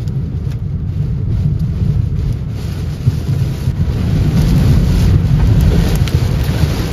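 Heavy thunderstorm rain on a moving car, heard from inside the cabin: rain pelting the windshield over a steady low rumble of wind and road noise, growing louder about four seconds in, with a few sharp ticks near the end.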